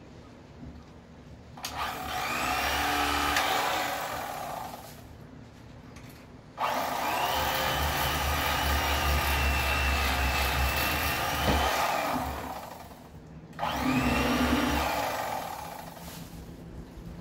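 Electric fillet knife running in three bursts, the longest about six seconds in the middle, its motor and reciprocating blades buzzing as it cuts through a crappie. Each burst trails off at the end.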